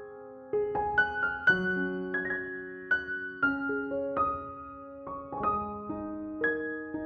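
Slow, soft solo piano music: single notes and chords struck about every half second to second and left to ring.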